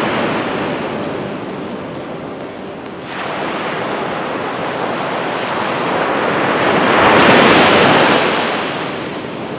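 Ocean surf washing up a sandy beach, a steady rush of breaking waves that swells to its loudest as a wave crashes about three quarters of the way through, then eases off.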